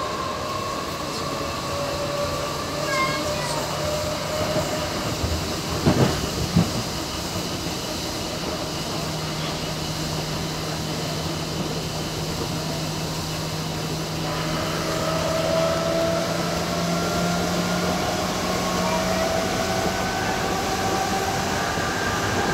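Hamburg U-Bahn DT3-E train under way, heard from the driver's cab: steady running noise with a motor whine. A brief cluster of knocks comes about six seconds in, and over the second half the whine rises in pitch as the train picks up speed.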